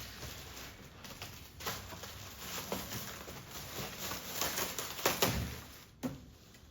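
Rustling and crackling of packaging being handled and unwrapped, with scattered small clicks and a sharp click about six seconds in.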